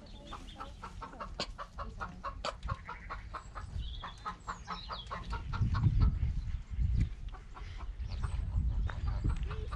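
Chickens clucking in a quick run of short clucks, several a second, with a few higher chirps mixed in. In the second half a low rumbling noise on the microphone grows louder than the birds.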